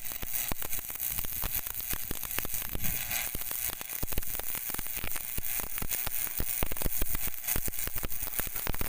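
Electric arc welding: the arc crackling and sizzling steadily, with dense irregular pops over a constant hiss.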